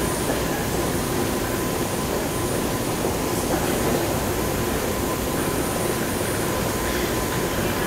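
BART train standing at an underground platform with its doors open, its equipment giving a steady hum and hiss that does not change.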